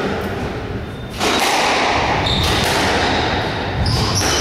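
Squash rally: the ball struck by the rackets and hitting the court walls several times, with short high squeaks of players' shoes on the wooden floor.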